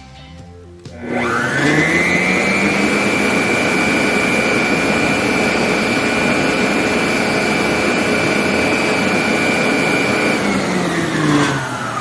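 Electrolux EKM3407R stand mixer's motor on its pulse setting. It spins up with a rising whine about a second in, runs loud and steady at full speed (about 81–82 dB at 30 cm), then winds down with a falling whine near the end.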